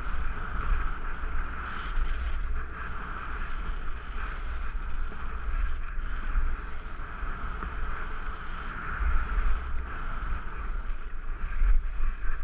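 Wind buffeting a helmet-mounted action camera during a downhill ski run, a gusting rumble over the steady hiss of skis sliding on packed snow.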